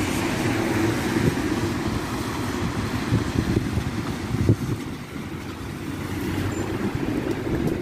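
Alexander Dennis Enviro200 single-deck diesel bus running as it approaches and pulls in at a bus stop, a steady low engine sound mixed with street noise.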